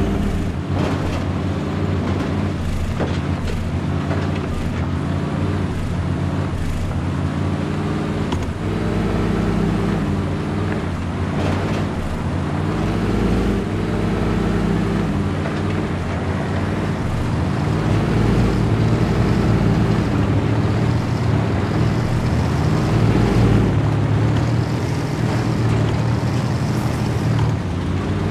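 RC scale crawler trucks driving over dirt and rock, with a steady engine-like drone that rises and falls in pitch with the throttle. There are occasional clicks and knocks from the wheels on the ground.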